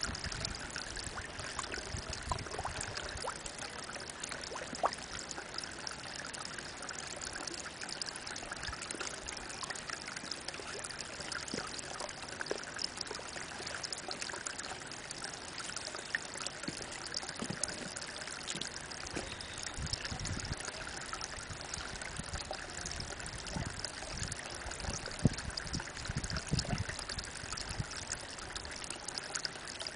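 Spring water falling in a thin stream from a mossy rock into a pond, a steady trickling splash. A few dull low bumps come in the last third.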